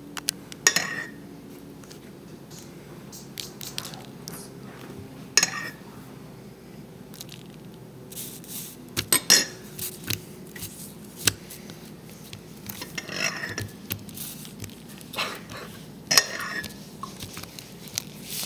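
Scattered taps, clicks and light wet squishes from fingers dabbling in a puddle of spilled milk on paper over a hard tabletop, with a cluster of sharper clicks about halfway through.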